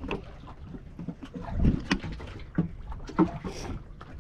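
Wind rumbling on the microphone and choppy water slapping against a small boat's hull, with a few short knocks, the loudest about two seconds in.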